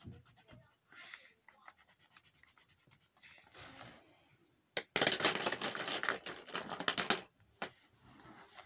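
Coloured pencil scratching on a colouring-book page in quick back-and-forth strokes. It is loudest for about two seconds past the middle.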